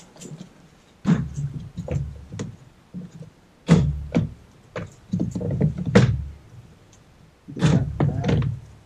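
Plastic knocking, clicking and rattling in four short bursts as the Tesla Model 3's clipped-in plastic air intake cover is pulled and worked loose by hand.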